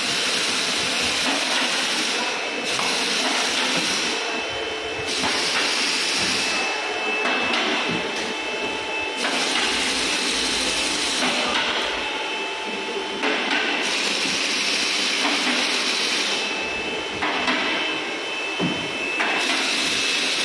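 Car-workshop noise: a loud hiss that swells and drops every second or two, with a faint steady high whine and a few short knocks.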